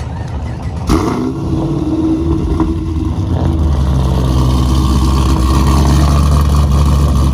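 A car engine running loudly. It comes in sharply about a second in, builds over the next couple of seconds, then holds a steady, deep note.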